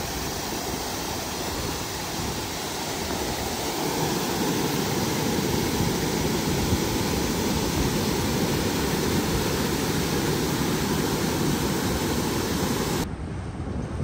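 Steady rushing noise with no distinct events. It changes abruptly about a second before the end, when the hiss in the upper range falls away.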